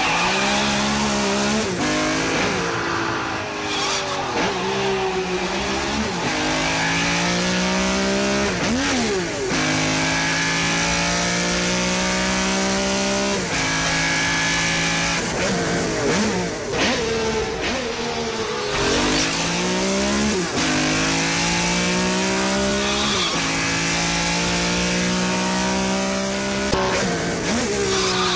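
Car engine driven hard, revving up in long climbs through the gears and dropping back as it shifts and slows for corners, with a few quick throttle blips.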